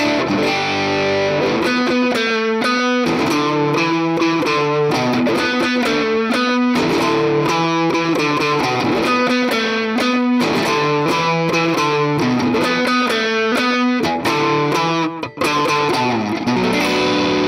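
Framus electric guitar with humbucker pickups played through a Valeton GP200 multi-effects unit on its overdrive preset: picked, repeating phrases of notes, with a short break about 15 seconds in.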